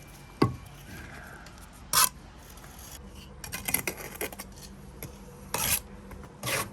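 Steel trowel scraping on brick and mortar in short, separate strokes, about five in all, as mortar joints are worked.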